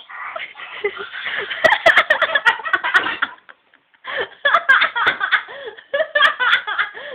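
People laughing hard in long fits, with a short break about three and a half seconds in.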